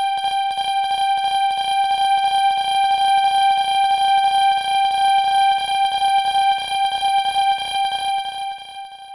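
Level-crossing warning bell ringing in a rapid, even run of strikes over one held ringing tone, fading out just before the end.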